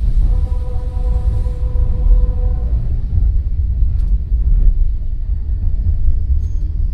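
Enoden 1000-series train running, heard from inside the car: a deep, steady rumble of the nose-suspended traction drive and wheels on the rails. A steady hum runs over it for the first few seconds and stops a little under three seconds in.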